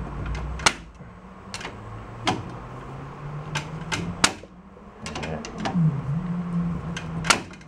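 Sharp metal clicks and clinks of a hand tool, pliers, working against the steel hub and bearing of a VW bus rear reduction gearbox. The clicks come irregularly, about a dozen in all, the loudest near the end.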